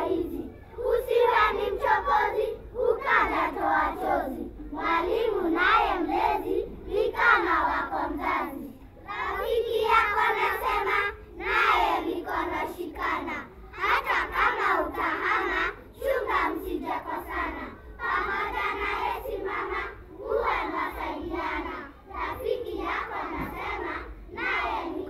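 A group of young children chanting a Swahili poem (shairi) together in unison, in short loud phrases of a second or two, each followed by a brief pause.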